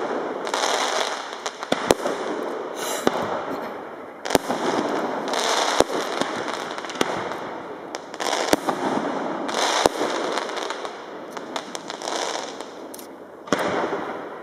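Aerial firework shells bursting in a display: a sharp bang every couple of seconds, with crackling between them.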